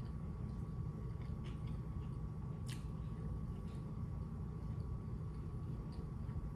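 Eating sounds while chewing sushi: a few soft mouth clicks, one sharper click near the middle, over a steady low hum and a faint steady high tone.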